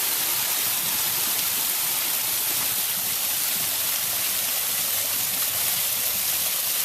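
Steady, even hiss of falling water, with no change in level.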